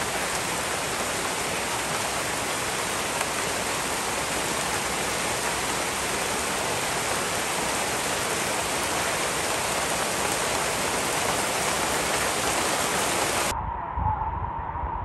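Heavy rain falling in a steady, dense hiss. Near the end it cuts off suddenly, giving way to a quieter, muffled background with a faint steady hum and a few low thumps.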